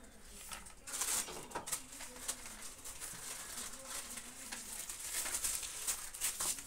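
Pen tip scratching on ruled notebook paper while letters are written by hand, as a run of short scratchy strokes starting about a second in.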